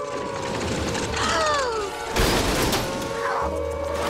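Cartoon warning siren sounding a steady droning tone over background music, with falling whistling glides about a second in. A little after two seconds in comes a loud crash.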